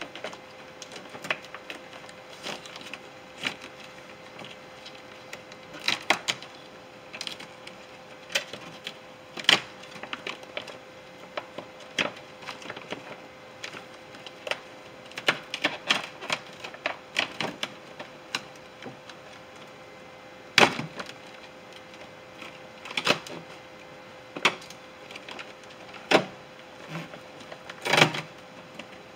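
Clear plastic door shield crinkling and crackling in irregular clusters of sharp clicks as it is pulled away from its rubbery sealant.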